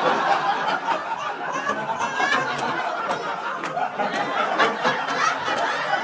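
Comedy club audience laughing together after a punchline, with scattered hand claps through the laughter.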